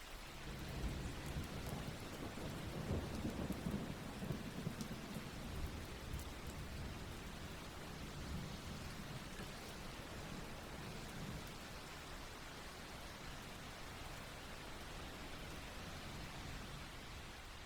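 Steady rain falling, with a long low rumble of thunder that swells within the first few seconds and then slowly dies away.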